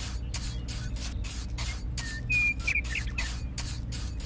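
Small hand tool scraping and smoothing wet cement in quick, even strokes, about three a second. A brief high whistle comes about two seconds in.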